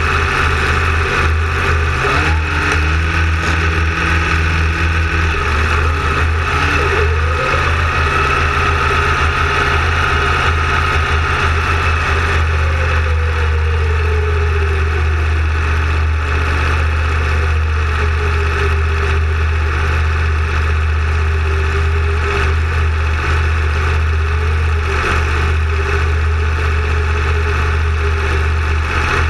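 Car engine running steadily at idle, with a few slow rises and falls in pitch.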